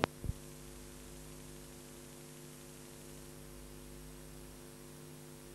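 Steady mains hum with faint hiss from VHS playback after the recording cuts off, with a sharp click at the cut and a short thump just after.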